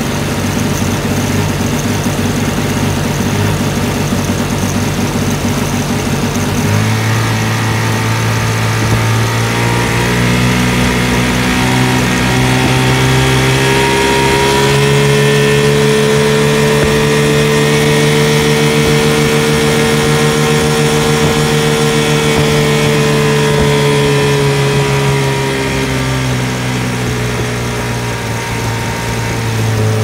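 1980 Sea King (Chrysler) 15 hp two-cylinder two-stroke outboard running under way. About seven seconds in the throttle opens, the engine note steps up and keeps climbing slowly, then it drops back over the last few seconds. The motor is running through the range where its top cylinder misfires at quarter throttle and comes back at mid to full throttle, a fault the owner traces to an ignition coil.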